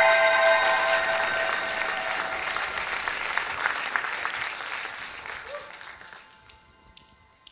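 Large audience applauding, the clapping dying away gradually over several seconds, with the last held chord of the intro music fading out at the start.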